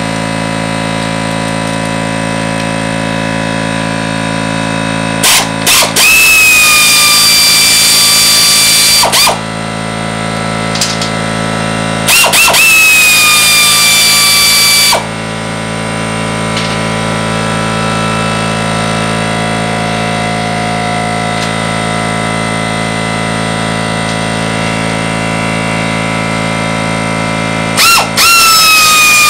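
Air ratchet running in three bursts as it backs out bolts. Each burst starts with a quick tap or two on the trigger, then settles into a steady whine that sags slightly in pitch. The last burst begins near the end. A steady drone runs underneath.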